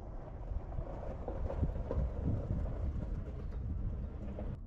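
Wind rumbling on the microphone, a steady low noise that swells a little in the middle.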